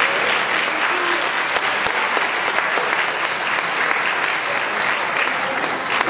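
Theatre audience applauding steadily, a dense patter of many hands clapping.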